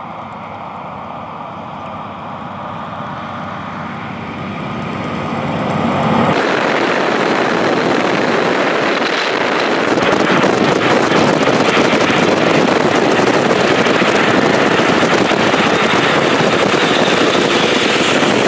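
A road train's diesel engine and tyres growing louder as the truck approaches. About six seconds in this switches suddenly to loud wind and road rush heard from inside a car at highway speed, as trucks pass close alongside.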